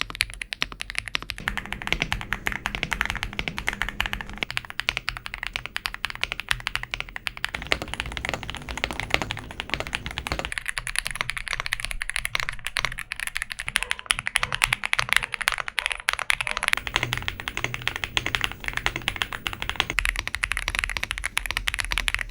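Typing on a mechanical keyboard: a fast, continuous stream of keystrokes used as a sound test.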